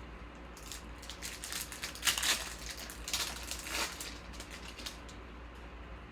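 Trading-card pack wrapper crinkling and cards being handled: an irregular run of crackles and scrapes, loudest about two seconds in and again around three to four seconds in.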